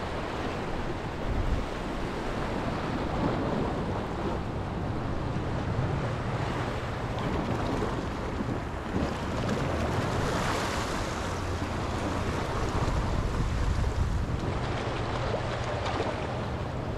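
Wind buffeting the microphone over the steady wash of sea waves, with a faint low steady hum underneath; a louder rush of water noise about ten seconds in.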